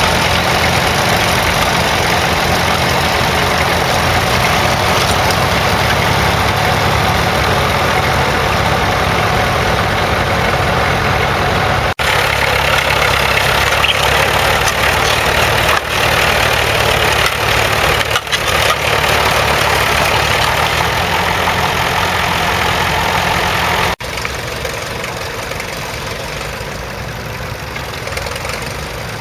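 Vintage crawler tractor engines running steadily while ploughing, a low engine hum under a broad rushing noise. The sound changes abruptly twice, about twelve and twenty-four seconds in, and is quieter after the second change.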